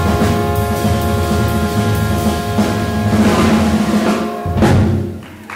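Jazz sextet of trumpet, tenor saxophone, trombone, electric guitar, upright bass and drum kit holding the tune's final chord over a drum roll on the kit and cymbals. It swells to a last accented hit about four and a half seconds in, then rings out.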